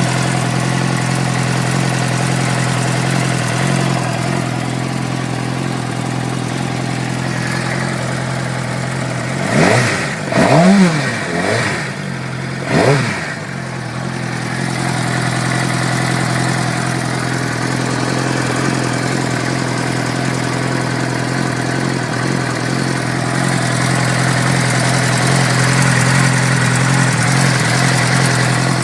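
2006 Suzuki GSX-R600's inline-four engine idling steadily, blipped up in revs and back down a few times near the middle. The owner is asking what causes a ticking noise the engine makes.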